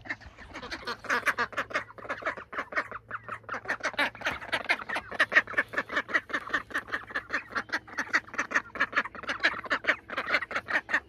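A flock of backyard poultry in a pen keeps up a continuous chatter of short, rapid calls, several a second, with no pause.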